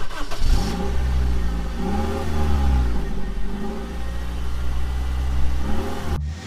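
A motor vehicle engine running with a deep rumble, revved up and back down a few times. It cuts off suddenly near the end.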